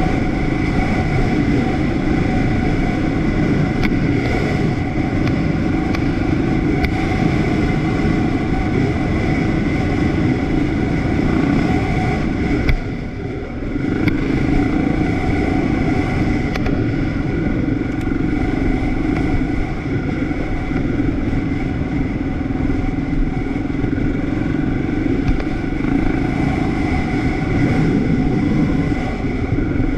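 A ridden vehicle's engine running steadily under way, dipping briefly about thirteen seconds in before picking up again.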